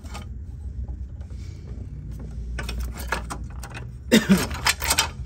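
Metal parts clicking and rattling as a golf cart carburetor is wiggled and slid off its mounting studs, a few light clicks at first and a louder clatter near the end, over a steady low hum.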